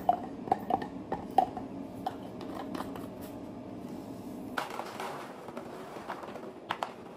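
Washed radishes dropping one by one into a small plastic jar, a quick run of light knocks. A few seconds in, a lid clicks and plastic rustles as green peas are tipped from a plastic colander into a zip-lock bag.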